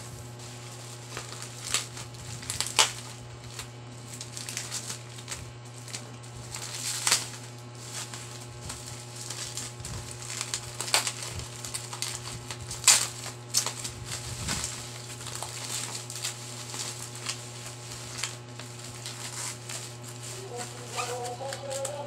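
Clear plastic bubble wrap crackling and crinkling as hands tear it open and pull it off plastic bottles, with a few louder snaps, over a steady low hum.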